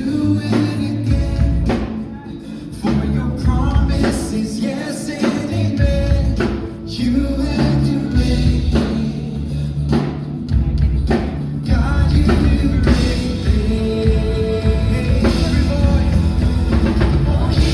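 Gospel praise-and-worship song: singing over a steady drum kit and heavy bass.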